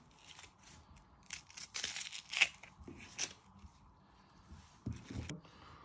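Onion skin and outer layers being peeled off by hand: a few soft, short papery crackles and tears, the loudest about two and a half seconds in.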